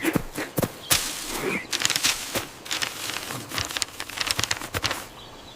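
A busy run of irregular crackling clicks and rustling that dies down near the end.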